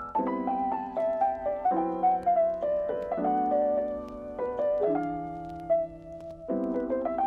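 Background piano music: a melody over held chords that change about every second and a half.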